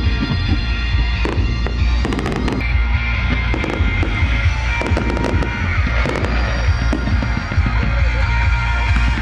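Aerial fireworks display: a series of sharp bangs, bunched thickest between about one and three seconds in, over a continuous deep rumble, with music playing alongside.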